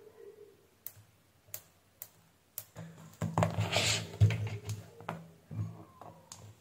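Four light clicks about half a second apart from a small white microswitch being handled and pressed while it is tested for continuity, then a louder stretch of rustling and knocks as multimeter test leads and a tool are put down and picked up on a workbench. The switch is faulty: its contacts are not making continuity.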